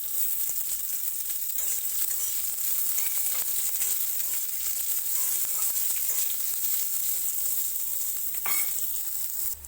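Onions frying in hot mustard oil in a kadai: a steady high sizzle, with one sharp click near the end.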